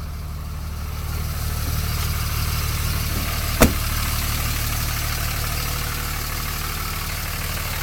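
Cummins 5.9-litre inline-six turbo diesel in a 2004 Ram 3500 idling steadily, with one sharp knock about three and a half seconds in.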